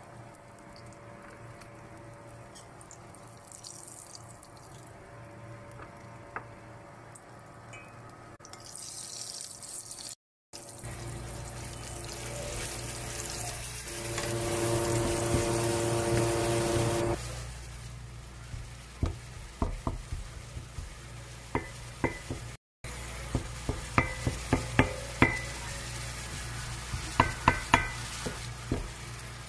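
Minced meat sizzling in hot oil in a stainless steel frying pan, with a spatula knocking and scraping against the pan as the meat is broken up and stirred, giving a series of sharp taps in the second half.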